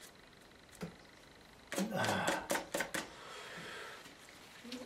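A quick cluster of clicks and knocks, as of objects being handled and set down, from about two seconds in, followed by a soft rustle for about a second.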